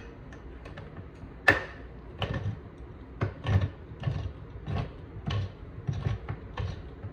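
A can opener being worked, clicking and clunking in short strokes about every half second, with one sharper click about a second and a half in. It is giving trouble: it works only sometimes and has to be held down.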